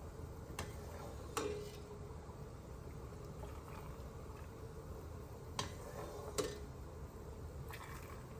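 Hot pickling brine being poured into a glass jar packed with cucumbers, a quiet trickle with a few sharp glassy clinks, two pairs of them about a second in and again near six seconds, the second of each pair ringing briefly.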